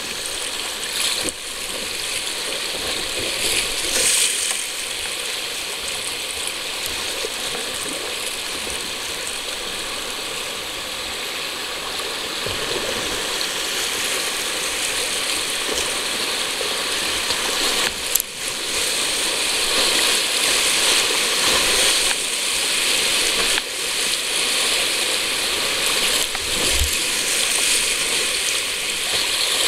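Whitewater rushing over a rocky river rapid: a steady, crackling rush of water with splashes, louder in the last third.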